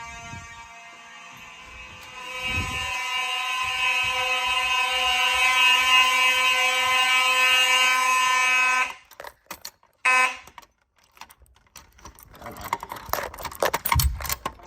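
Fire alarm horn sounding one steady, buzzy tone, louder from about two seconds in, then cutting off suddenly about nine seconds in as the system is silenced. It sounds again for a moment about a second later, then gives way to a few clicks and handling knocks.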